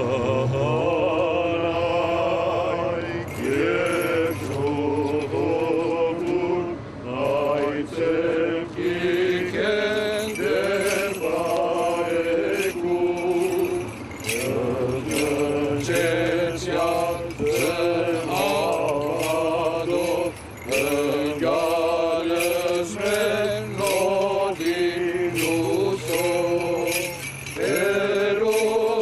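A man chanting an Armenian church hymn, a slow melody of wavering held notes, with the small bells on a swinging censer jingling again and again from a few seconds in.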